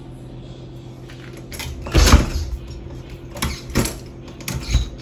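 Handheld walking across a tile floor toward a door: a few scattered footstep thuds and knocks over a steady low hum.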